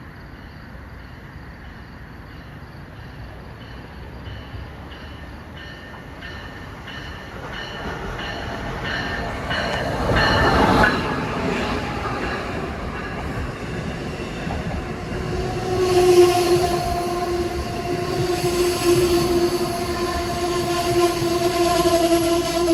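A train approaching through the station: a rumble that grows louder from about eight seconds in and peaks in a loud rush of wheels and air. From about sixteen seconds in, its horn sounds a long, steady chord that is still going at the end.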